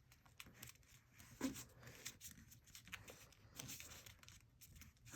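Near silence with faint handling of folded printer paper: soft rustles and small crinkling ticks as the paper is folded and creased, one slightly louder about a second and a half in.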